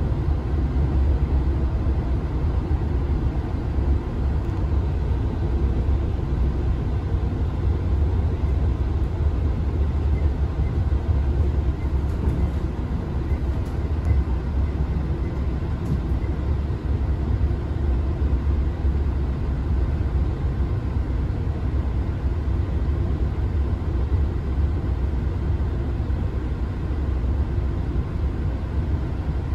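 Interior noise of a Class 166 Turbo diesel multiple unit running at speed: a steady low rumble, as heard inside the passenger saloon.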